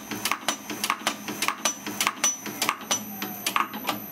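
Eminence 6K commercial bullet sizer running, its punch cycling projectiles through the sizing die with a rapid, regular clicking and clacking over a steady high whine. The clicking pauses briefly near the end.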